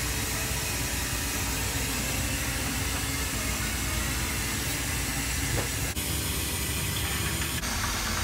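Steady rushing hiss, dipping briefly about six seconds in and again near the end.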